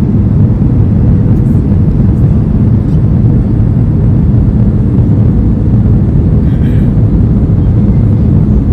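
Steady, loud cabin noise of a Boeing 737-500 on approach to landing: a low rumble of engines and airflow heard from inside the cabin over the wing, with a faint steady hum on top.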